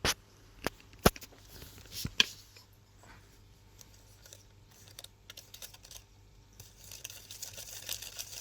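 Plastic spoon clicking sharply against the plastic tray of a Popin Cookin candy kit four times in the first couple of seconds while the mix is stirred, then a soft steady scraping near the end.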